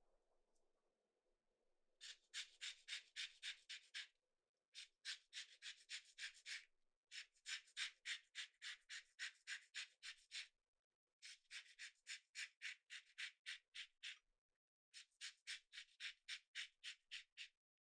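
A lemon rubbed along a long rasp grater to zest it: quick scraping strokes, about four or five a second, in five runs with short pauses between them.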